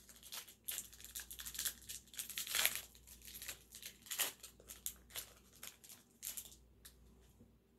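Foil wrapper of a football trading-card pack being torn open and crinkled: a run of short crackling rustles, loudest about two and a half seconds in, dying away near the end.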